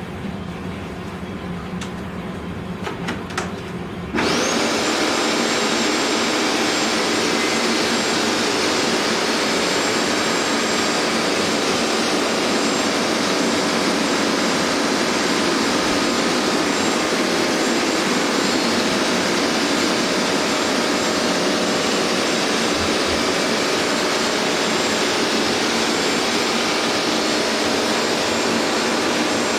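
Hoover MaxExtract carpet cleaner: a few clicks, then about four seconds in its suction motor starts with a quick rising whine and runs steadily and loudly, a high whine held over a dense rushing noise.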